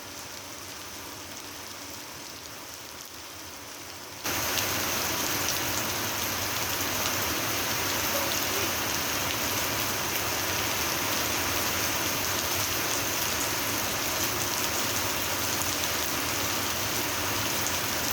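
Steady rain falling, an even rushing noise; about four seconds in it becomes suddenly much louder and stays steady.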